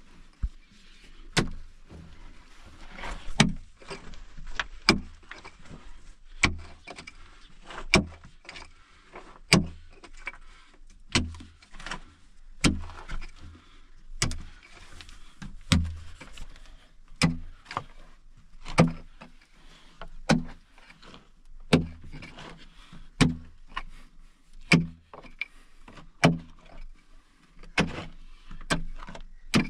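A pickaxe striking packed earth and gravel in a steady rhythm, about one blow every second and a half, each a dull thud followed by loose soil and stones trickling down.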